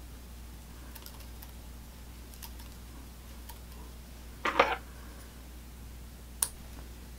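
Small sounds of fly tying at a vise: a few faint ticks, a short louder rustle about halfway through, and a sharp click near the end as small scissors come to the fly to trim. A steady low hum runs underneath.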